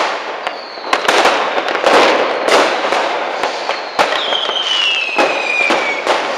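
Fireworks and firecrackers going off in quick succession: many sharp bangs over a steady crackle. A high whistle falls in pitch about half a second in, and a stronger falling whistle runs from about four seconds in.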